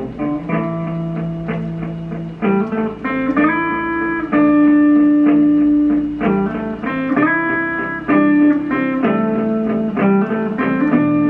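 Electric guitar playing single-note lines: quick picked runs alternating with long held notes.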